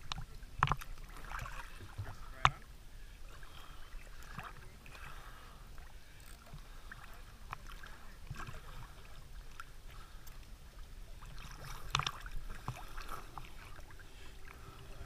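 Small waves lapping and sloshing against a GoPro's waterproof housing as it bobs at the surface, with a few sharp knocks, the loudest about two and a half seconds in and another near twelve seconds.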